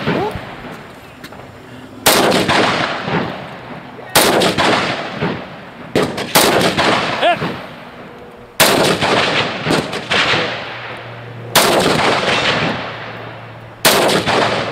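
Seven single rifle shots at irregular intervals, mostly two to three seconds apart with a quick pair about six seconds in, each followed by a long echo rolling off the quarry walls.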